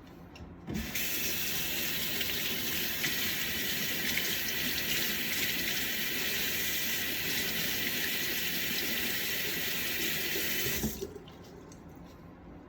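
Kitchen tap turned on with a knock, water running steadily into a sink for about ten seconds, then turned off with a knock.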